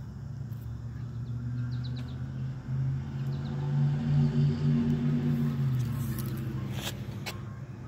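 Low steady motor hum, likely a passing vehicle, that swells for a couple of seconds in the middle and eases off, with a few faint bird chirps in the first half and two sharp knocks near the end.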